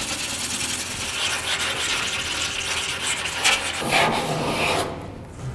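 Body filler on a car's body panel being sanded with 80-grit abrasive paper: a continuous rough scraping that stops near the end.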